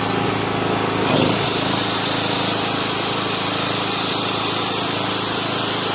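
Hawk 3 kW portable petrol generator's engine running steadily. About a second in, the sound turns brighter and stays that way.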